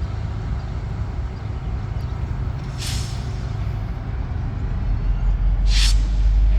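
Diesel locomotive rumbling steadily, with two short hisses of released air from the brake system about three seconds apart; the low rumble grows louder near the end.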